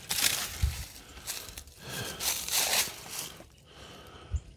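Dry tree limbs and twigs crackling and snapping as they are broken by hand and pulled through the brush, in two noisy bursts about two seconds apart.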